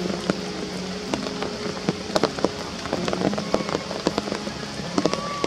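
Rain falling steadily, with many sharp drops hitting close by. Under it runs a steady low hum, and a short high-pitched call comes near the end.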